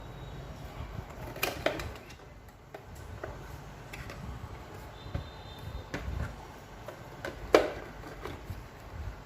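Scattered clicks and knocks of objects being handled, with two close together about a second and a half in and the loudest about seven and a half seconds in, over a low steady hum.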